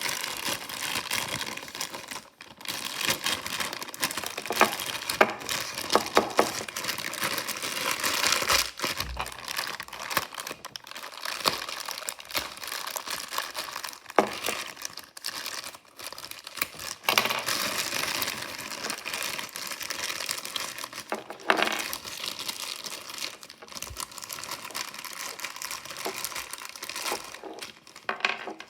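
Crinkly packaging wrapper being handled and torn open, with continuous crinkling broken by many sharp little clicks and ticks.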